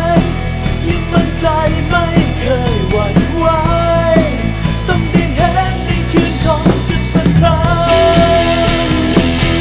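Background music: a song with a sung melody over a rock-style band backing.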